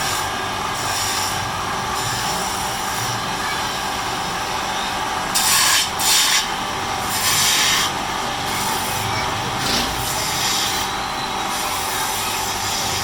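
Wood lathe running steadily, with a turning tool scraping against the spinning wood in several short, louder bursts in the second half.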